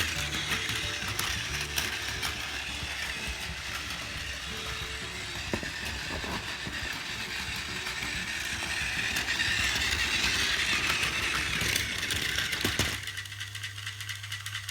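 Battery-powered Plarail Doctor Yellow toy train running on plastic track: a steady mechanical whir of its small motor and gears with clicking over the rail joints, growing louder, then cutting off about thirteen seconds in and leaving a low hum.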